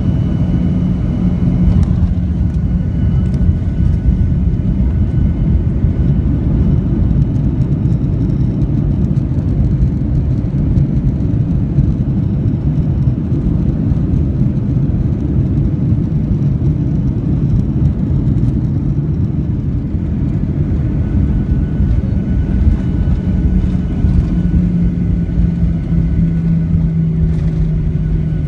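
Cabin noise inside a Boeing 737-900ER taxiing on the ground: the CFM56-7B jet engines run at low power under a dense, steady low rumble. An engine hum runs through it and grows a little stronger and lower in pitch near the end.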